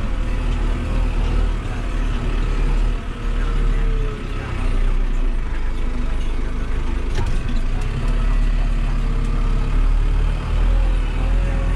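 New Holland tractor's diesel engine running steadily under work. It eases off briefly in the middle, then picks back up.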